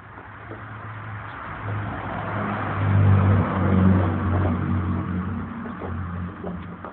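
A motor vehicle driving past, its engine hum and tyre noise swelling to a peak a few seconds in and then fading away.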